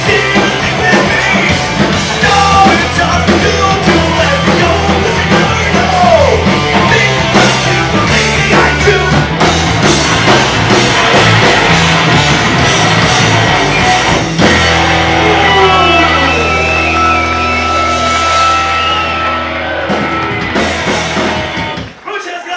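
Live punk band playing loud: distorted electric guitars, bass, drums and shouted vocals. About two-thirds of the way through the band settles into a long held, ringing chord, which cuts off sharply near the end as the song finishes.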